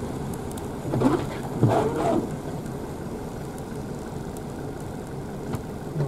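Steady road and engine noise heard from inside a moving car, with a brief voice-like sound about a second in.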